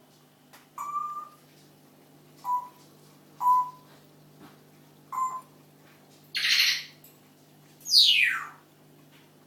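Parrot calling: four short whistled notes a second or two apart, then a harsh screech and a loud whistle that falls steeply in pitch near the end.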